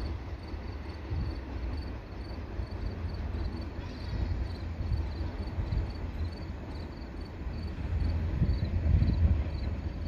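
Crickets chirping in a steady rhythm, about two to three chirps a second, over a low, uneven rumble.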